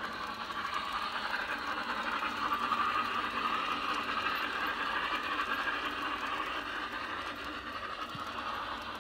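Garden-railway model of an Hf 110 C field-railway locomotive running along outdoor track with its train, a steady rattling of wheels and running gear that is loudest about three seconds in as it passes and then fades slightly.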